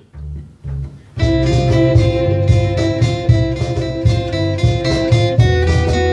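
Acoustic guitar strumming over held sustained notes and a low bass line, an instrumental introduction. A few low bass notes sound first, and the full ensemble comes in about a second in.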